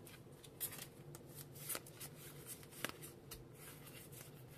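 Pokémon trading cards being handled and leafed through by hand, with several soft flicks and slides of card against card over a faint, steady low hum.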